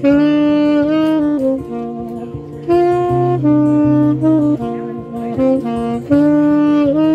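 Saxophone playing a slow melody in phrases of long held notes with small slides between pitches, over a steady low accompaniment, with a brief quieter gap about two seconds in.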